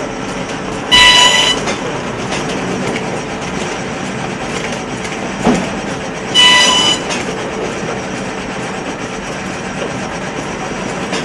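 Horizon BQ-440 perfect-binding machine running steadily. Twice, about five and a half seconds apart, a short, loud, high-pitched whine cuts in as the machine cycles, with a brief knock shortly before the second one.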